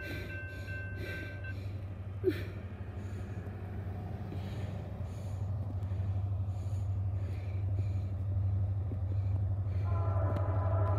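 Railroad crossing bell ringing in a steady rhythm while the crossing gates lower, over a low rumble that slowly grows louder. About ten seconds in, a steady multi-tone horn starts sounding: the approaching train's horn.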